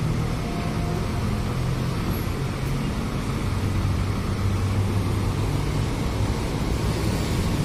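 Scania K410 CB sleeper bus's rear-mounted diesel engine running as the bus pulls away from the fuel pumps, a steady low drone.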